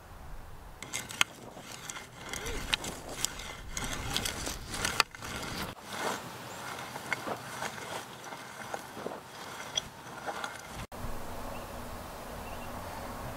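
Steel blade of a small hand hoe scraping and chopping through dry, stony soil in quick, irregular strokes. Near the end the sound cuts off abruptly and gives way to a steady outdoor hiss with a faint low hum.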